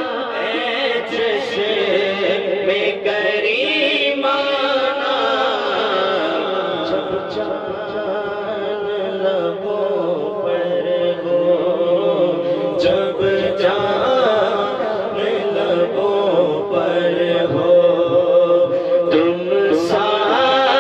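A man's voice singing a naat, an Urdu devotional poem, into a microphone, with long, ornamented held notes. From about halfway through, a steady held drone note sounds beneath the voice.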